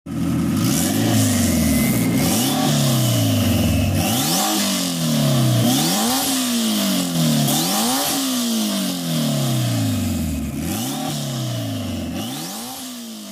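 Car engine revving hard: its pitch climbs and falls back every second or two, several climbs ending in a sudden drop like a gear change, and it fades toward the end.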